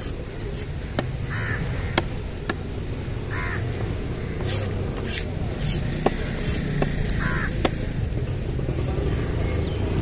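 A heavy steel knife chopping through a tuna into a wooden stump block: about five sharp strikes at uneven intervals. Crows caw three times over a steady low background rumble.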